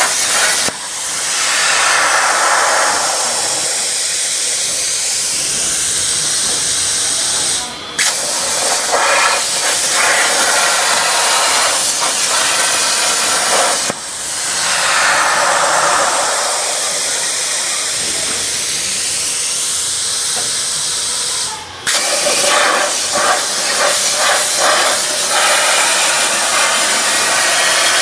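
CNC plasma torch cutting 1.5 mm stainless steel sheet: the arc and air blast make a loud steady hiss. It breaks off briefly four times as the arc stops and restarts, and after each restart a tone falls over a couple of seconds.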